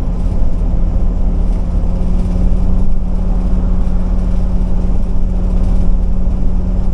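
Ford E-450 motorhome with its Triton V10 cruising steadily on the highway: a constant low drone of engine and road noise with a steady hum that holds the same pitch throughout.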